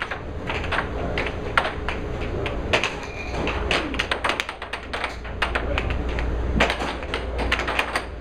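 Air hockey puck clacking sharply against the mallets and the table's rails in fast, irregular rallies of hits, over a deep steady hum.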